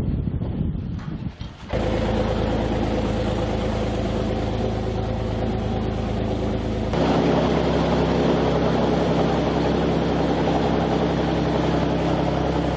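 Boat engine running steadily under way, with the rush of churning water in the wake; it cuts in abruptly after a second or two of wind noise, and its tone changes abruptly about seven seconds in.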